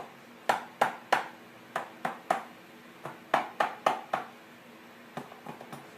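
Rubber mallet tapping on a hot, simmered ram horn to knock the horn sheath loose from its core: sharp taps in quick groups of three, then four, then a few lighter taps near the end.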